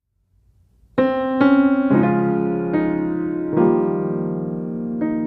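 Background piano music: silence for about a second, then a slow sequence of sustained piano notes and chords.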